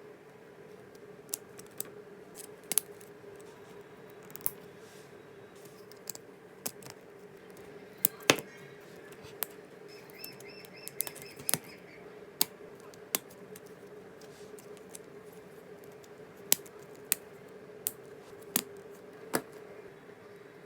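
Hard plastic LEGO Technic parts clicking and tapping as they are handled and fitted, a string of sharp single clicks at irregular intervals.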